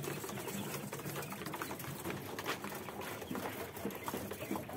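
A cage of quail: soft, low bird calls over many small, scattered clicks.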